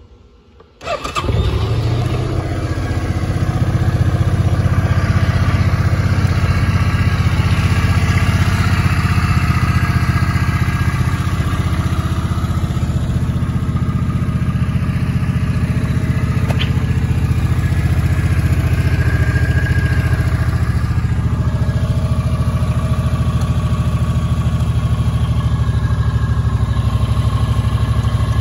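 2008 Suzuki Boulevard M50's V-twin engine on a cold start, catching about a second in. It climbs over the next few seconds and settles into a steady idle.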